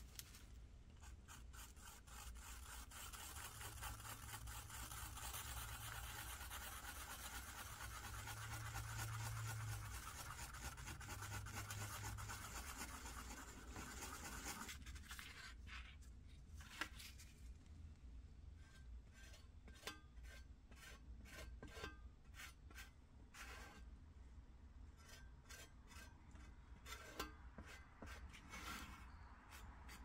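Wooden craft stick stirring and scraping two-part epoxy filler on cardboard, a soft continuous scraping. A little under halfway through it changes to a plastic spreader scraping the filler onto a sheet-metal panel in many short separate strokes.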